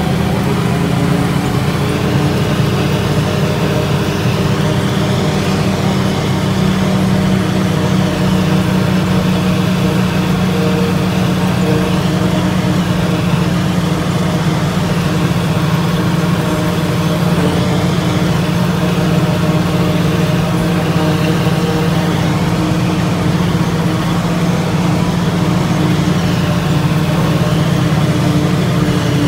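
Tractor engine and pull-type forage harvester running steadily under load, chopping standing corn and blowing it into the wagon: a constant loud drone with an even mechanical rush.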